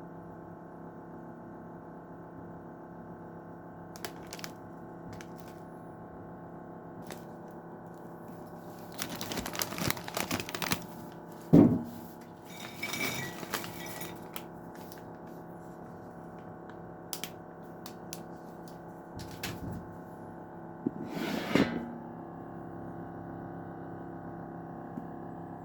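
Crunchy Cheetos being eaten: short bursts of crunching and snack-bag crinkling, with one sharp cough, the loudest sound, about halfway through. Soft steady background music throughout.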